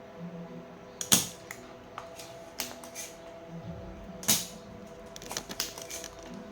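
A series of sharp clicks and taps, two louder ones about a second in and past four seconds, over soft background music with held notes.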